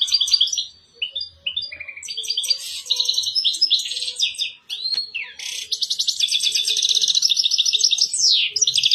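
European goldfinch singing its courtship song during mating: quick twittering phrases, then from about halfway a long, fast trill of rapidly repeated notes.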